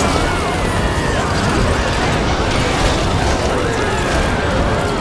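A dense din of dozens of cartoon soundtracks playing at once: many overlapping high, gliding voices, music and sound effects blurred together at a steady level.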